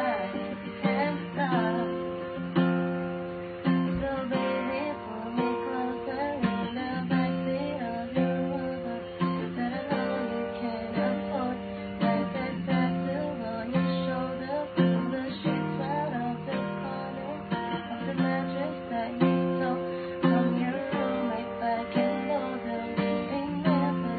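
Acoustic guitar played as song accompaniment, its chords changing every second or two.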